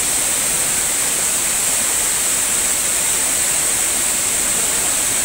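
Rainwater flooding across a road, rushing and spilling over a kerb edge in a steady, unbroken rush of water.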